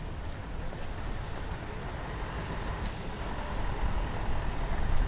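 City street traffic: a low, steady rumble of passing motor vehicles that swells louder near the end, with one sharp click about three seconds in.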